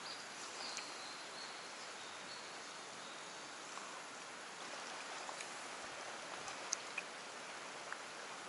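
Steady water noise, from rain on the water or a nearby flowing stream, with a few faint clicks near the end.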